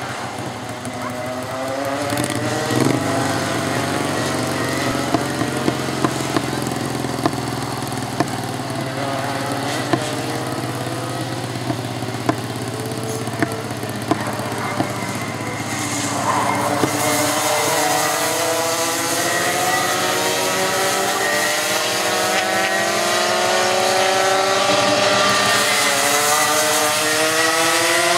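Several two-stroke racing kart engines revving hard, their pitch repeatedly dropping and climbing as the karts lift off and accelerate through the corners. The sound grows louder about halfway through as the karts draw closer.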